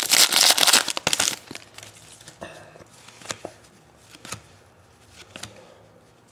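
Foil wrapper of a 2011 Elite Extra Edition baseball card pack crinkling as it is torn open, loud for about the first second and a half. After that come quieter clicks and rustles of the cards being handled.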